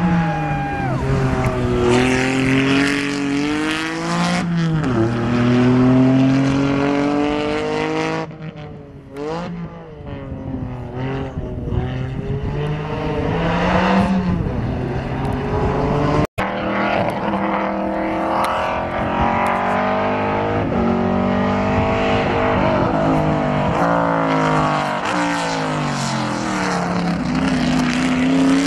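Acura NSX race car accelerating hard uphill, its engine note climbing through each gear and dropping at every upshift. It grows fainter as the car gets farther away and comes back louder again. After an abrupt cut, a race pickup truck's engine revs up through the gears the same way as the truck approaches.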